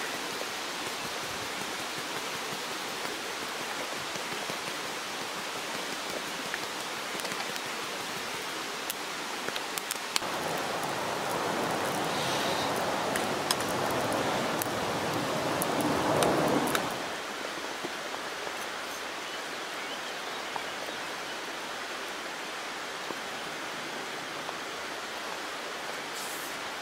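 Steady rushing of a nearby river. It grows louder for several seconds around the middle, then drops back abruptly, and a few faint clicks are heard over it.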